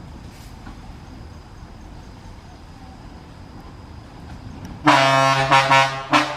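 Vehicle horn honking about five seconds in: one blast of about a second, steady in pitch and broken into a few pulses, then a short toot.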